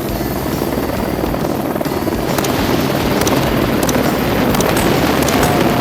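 Helicopter running steadily, a constant loud rumble. From a couple of seconds in, a scatter of short sharp clicks sounds over it.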